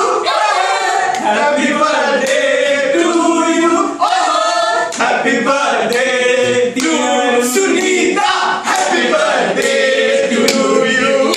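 A group of men singing loudly together.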